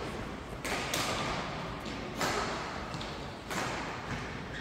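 Badminton racket hits on shuttlecocks, three sharp strikes about a second and a half apart, each trailing into the echo of a large sports hall.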